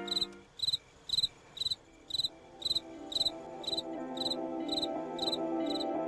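A cricket chirping at an even pace, about two chirps a second, over soft music with long held notes.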